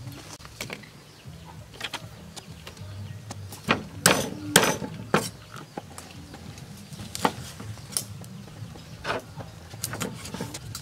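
A cleaver chopping an eel into pieces on a wooden chopping block: irregular knocks, with the loudest few strokes coming close together about four seconds in.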